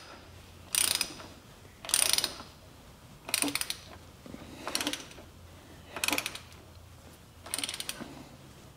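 Ratchet wrench clicking in six short bursts, about one every second and a half, as it is swung back and forth to spin the oil filter housing cap down its threads. The housing is turning with little resistance, not yet near tight.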